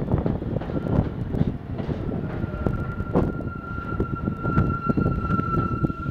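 R46 subway cars rolling past along the platform: a steady low rumble with frequent sharp clacks from the wheels, joined about a second in by a steady high-pitched metallic squeal that is loudest near the end.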